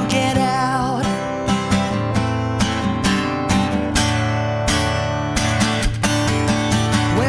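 Instrumental break in a rock song: strummed acoustic guitar with the band, no vocals.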